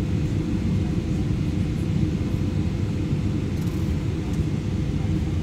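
Steady low rumble of engine and airflow noise inside the cabin of a Boeing 777-300ER on final approach, its GE90 turbofans at low approach power.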